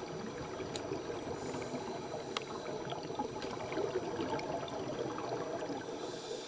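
Underwater sound of scuba divers in a pool: a steady crackling, bubbling rush of exhaled air bubbles, with two sharp clicks, about a second in and about two and a half seconds in.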